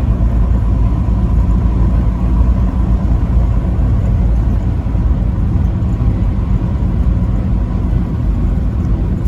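Steady low rumble of a vehicle's engine and tyres while driving at highway speed, with a faint steady whine. No horn sounds.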